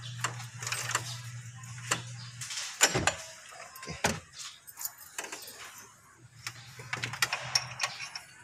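Scattered metallic clicks, clinks and knocks from hands and tools handling engine drive belts and pulleys, over a steady low hum that drops out about two and a half seconds in and returns near the end.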